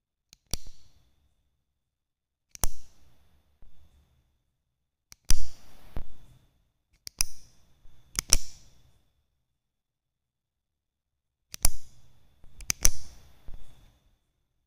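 Capacitor-discharge spot welder, charged from a 12 V battery, firing through two hand-held welding pens onto a thin metal strip: about eight sharp snapping cracks at uneven intervals, several followed by a brief crackling hiss.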